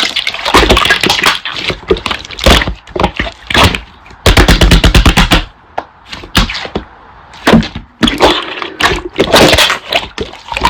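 Slime being squeezed and worked by hand, giving irregular crackles, pops and squelching clicks, with a quick run of pops about halfway through.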